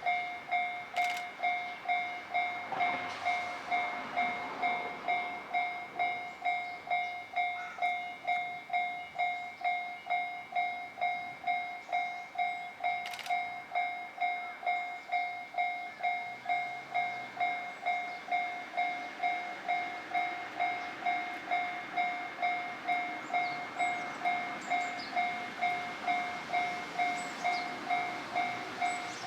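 Japanese level-crossing warning bell ringing, an electronic ding repeating about twice a second, the signal that a train is approaching. A brief rush of noise passes about three seconds in.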